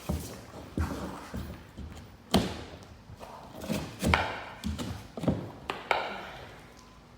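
A series of about nine knocks and thuds on drywall, the loudest about two and a half seconds in, with scraping after some of them, as the board is broken open over a buried electrical box; it dies down near the end.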